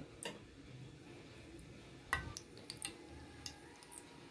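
Melted ghee heating in a small pan, giving faint scattered ticks and pops, with a soft knock about two seconds in.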